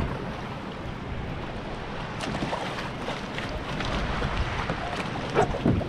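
Wind buffeting the microphone over sea water lapping and splashing around a kayak, with a few small splashes about two seconds in and again near the end.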